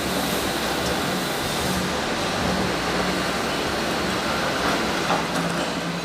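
Electric arc welding in the overhead position: the arc crackling and hissing steadily throughout, over a steady low hum.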